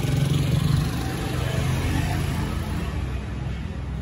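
Kubota M6040SU tractor's diesel engine idling steadily, a little quieter after about a second.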